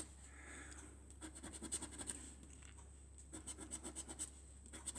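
Scratching the coating off a scratchcard, faint quick strokes in two short spells.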